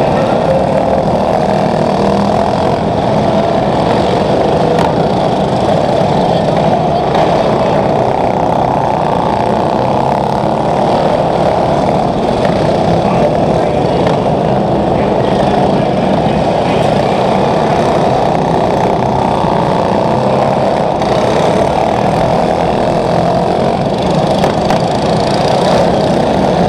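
Small engines of several racing lawn mowers running together at speed, a loud, steady drone inside a large indoor arena.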